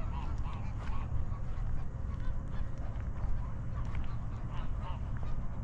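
Waterfowl calling: a run of short, repeated honking calls, many overlapping, over a steady low rumble.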